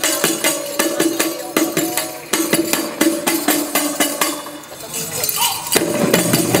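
World-music ensemble playing live: quick, regular hand-percussion strokes over a held pitched tone. Just after four seconds in the playing thins out briefly, then a fuller, lower-pitched texture comes in near the end.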